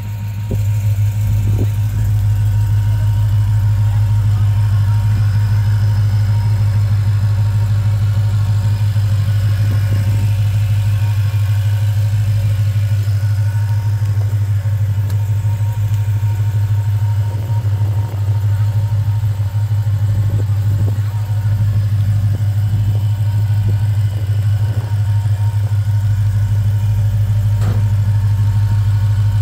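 2017 Dodge Challenger SRT Hellcat's supercharged 6.2-litre V8 idling, a steady, even low hum.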